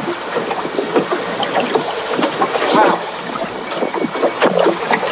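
Water slapping and splashing against the hull of a small fishing boat on choppy sea, with wind on the microphone and irregular knocks.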